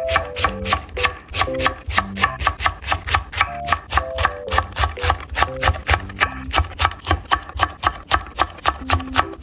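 Chef's knife slicing green onion and chili peppers on an end-grain wooden cutting board: quick, even chopping strokes, about five a second.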